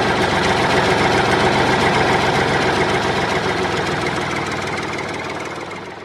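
Excavator diesel engine running steadily with a fast, even knock, gradually fading out toward the end.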